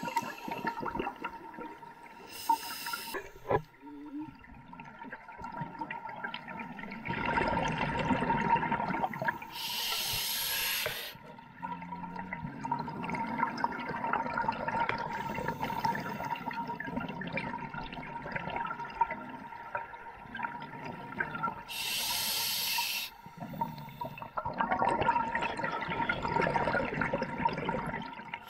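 Scuba diver breathing through a regulator underwater: three sharp inhalation hisses, each about a second long, with long bubbling exhalations between them.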